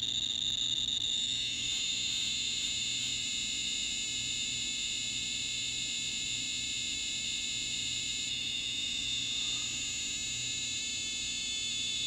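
Radiacode 101 radiation detector sounding a steady, high-pitched electronic tone without a break. It is the detector's count signal held close to an americium-241 source, at a count rate of about a million counts per minute.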